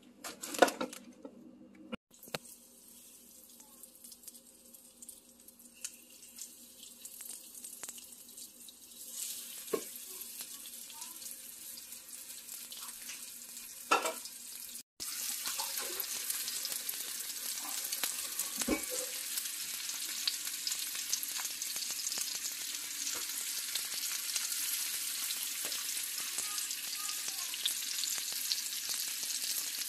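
Flour-dredged chicken pieces frying in a skillet, sizzling with a steady hiss that grows and is loud and constant from about halfway on. A few sharp knocks come through, from a utensil or the pan.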